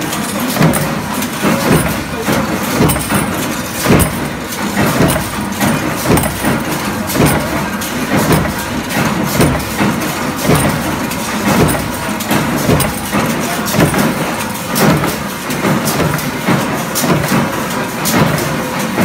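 Mechanical punch presses stamping steel hinge parts: a steady machine din with many clanking knocks.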